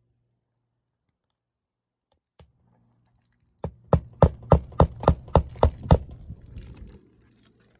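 Hammer driving a roofing nail through an asphalt shingle: one light tap, then a quick run of nine sharp blows at a little over three a second.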